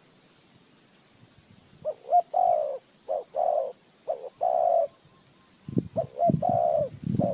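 Spotted dove cooing in two phrases of short notes followed by longer rolling coos, the first about two seconds in and the second near the end. Low rumbling knocks come in under the second phrase.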